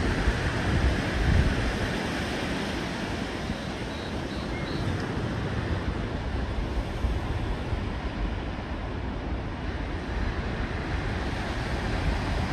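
Wind gusting on the phone's microphone with a heavy low rumble, over the steady wash of surf on a rocky shore. The gusts are strongest at the start.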